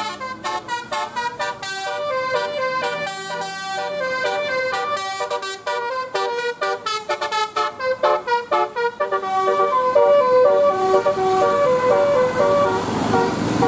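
Bus telolet horn playing a melody: a quick run of short pitched notes, then longer held notes from about nine seconds in. A louder noisy rush of engine and road sound builds under it near the end.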